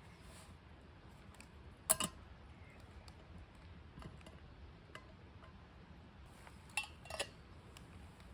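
A few sharp clicks and light clinks: a close pair about two seconds in and another pair near the end, with fainter ticks between, over a low steady background.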